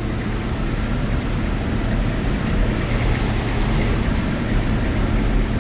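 Humvee running and moving, heard from inside the cabin: a steady engine and driving rumble with an even rushing noise over it.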